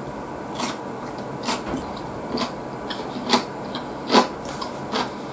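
Eating sounds: chewing with irregular sharp clicks and crackles, and chopsticks picking food from an aluminium foil bento tray.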